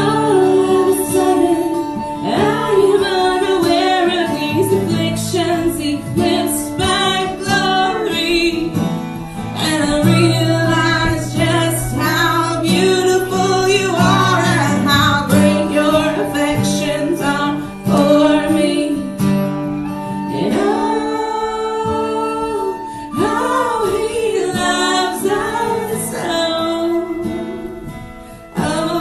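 Worship song: singing with guitar accompaniment.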